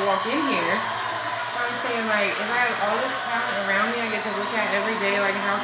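An electric barbering tool's motor running steadily, with indistinct voices behind it.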